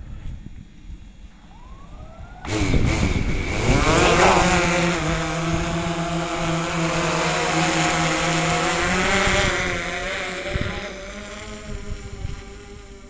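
DJI Phantom 3 Advanced quadcopter's four motors and propellers starting up suddenly about two and a half seconds in, rising in pitch as they spin up for take-off, then a steady buzz as the drone lifts off and climbs, fading over the last few seconds as it gains height.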